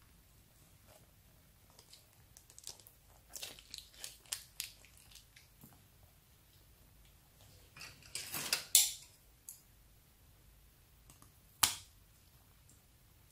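Plastic bag full of slime being squeezed and crinkled in the hands, with scattered crackles and a louder crinkly burst past the middle, then one sharp snip as the bag is cut open with scissors near the end.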